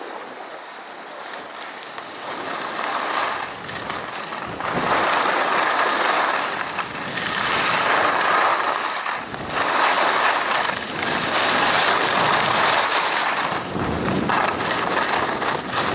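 Skis sliding and carving on soft snow, the scraping hiss swelling with each turn every couple of seconds and getting louder about four seconds in, with wind buffeting the microphone.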